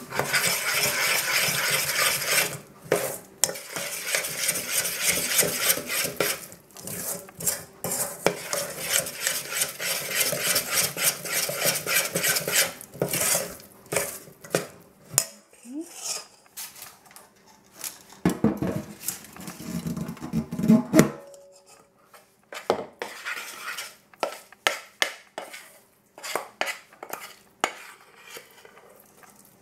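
Metal spoon scraping and clinking against a stainless steel saucepan as it stirs extra dry brownie mix into thick brownie batter. The clinks are rapid and steady for about the first thirteen seconds, then come sparser, with quieter gaps.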